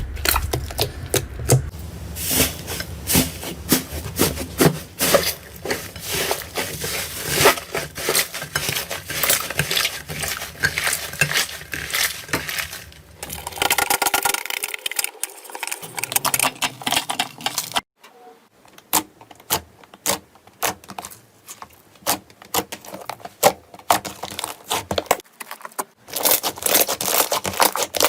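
Slime being squeezed, stretched and poked by hand: a dense run of sticky crackles, pops and clicks. The sound changes abruptly a few times, quieter after the middle, as different slimes are handled.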